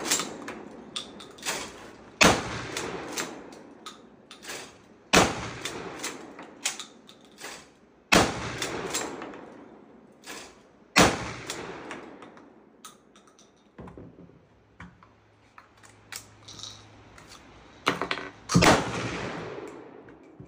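Shotgun shots, four about three seconds apart and another near the end, each a sharp bang that rings out for a second or so. Light clicks and clatter of the gun being handled come between them.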